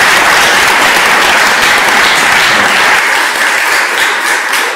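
Audience applauding steadily, easing off near the end.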